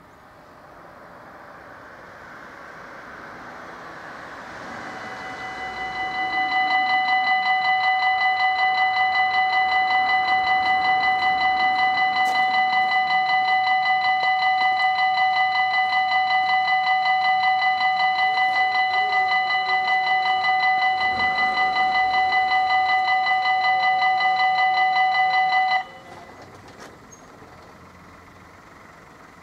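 Belgian level-crossing warning bell ringing, a high electronic ding repeated rapidly and evenly, warning of an approaching train. It starts about five seconds in and cuts off suddenly near the end, once the barriers are down.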